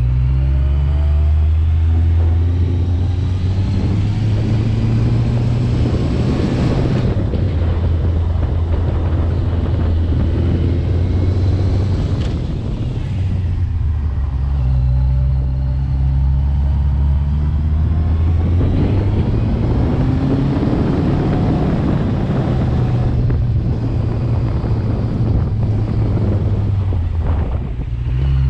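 Vehicle engine running on the move, its revs rising and falling and dropping back several times, over steady travelling noise.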